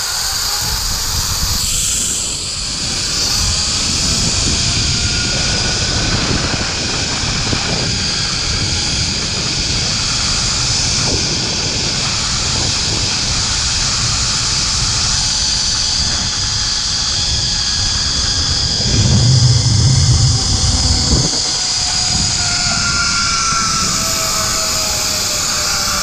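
Zip line trolley's pulley wheels whirring along the steel cable, with a whine that rises in pitch as the rider picks up speed and falls in the second half as the ride slows. Under it, wind rumbles on the microphone, heaviest about nineteen seconds in.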